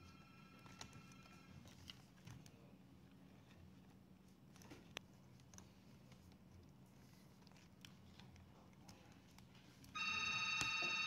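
A phone ringtone: a warbling electronic tone of several steady pitches sounds loudly for about two seconds starting near the end, after a fainter, shorter burst of the same kind at the very start. In between come only faint clicks and taps of hands working a laptop's plastic screen bezel and hinge.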